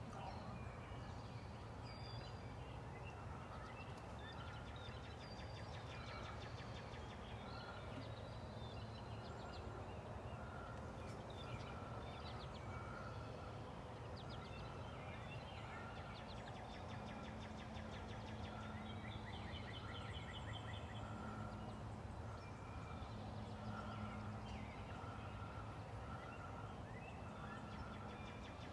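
Quiet spring woods: a wild turkey calling, with songbirds trilling and chirping and a short note repeating about once a second.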